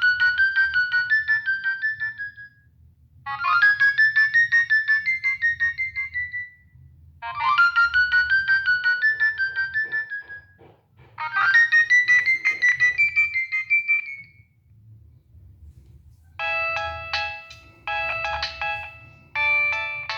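Nokia 6585i polyphonic ringtone playing: four phrases of rapidly repeated synthesized notes, each a couple of seconds long with short pauses between them. About 16 seconds in it changes to a different tune of three short chord-like blasts.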